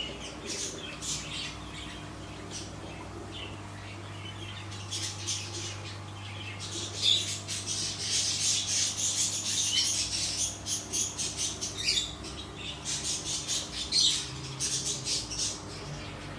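Small birds chirping and squawking in quick, irregular runs, busiest in the middle, over a steady low hum.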